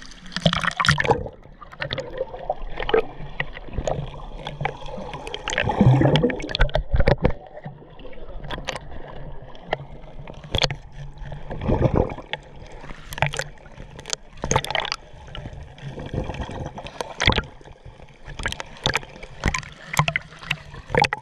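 Sea water splashing and gurgling around a camera held at the water line as it dips under and comes back up, with many short, sharp splashes against it.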